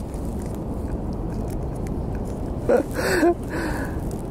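Steady low outdoor rumble, with a brief bit of a man's voice about three seconds in.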